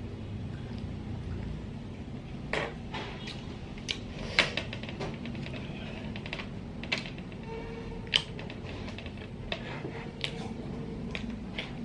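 Cooked ốc cà na (nerite snail) shells clicking and clattering as the snails are handled and picked out with a pin over a metal tray: about a dozen sharp clicks scattered at irregular moments, over a steady background hiss from heavy rain.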